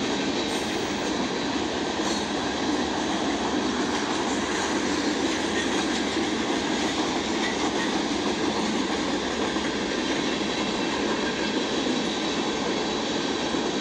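Mixed freight train's tank cars and hoppers rolling past: a steady noise of steel wheels on rail.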